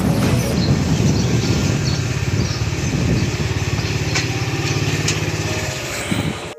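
Motorcycle engine running as the bike rides slowly along a street and pulls up. The low engine note stops near the end.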